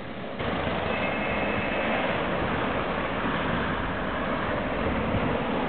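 Sapporo streetcar snow sweeper (sasara densha) running along the track, its rotating bamboo brooms sweeping snow from the rails: a steady, loud rushing noise that steps up about half a second in.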